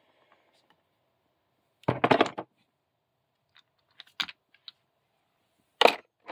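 Metal hand tools clinking and clattering in a tool kit as they are handled and rummaged through: a short rattle about two seconds in, a few light clicks around four seconds, and a sharper clack near the end.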